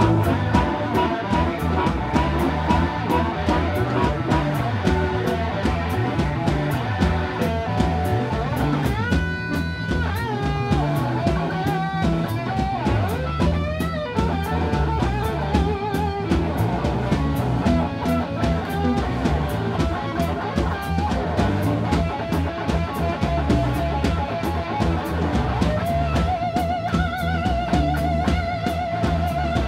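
Live blues band playing: electric guitar lead over a drum kit, with bent notes about a third of the way in and a long held note with vibrato near the end.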